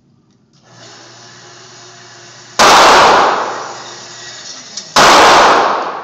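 Two pistol shots about two and a half seconds apart, each very loud and dying away in a long echo.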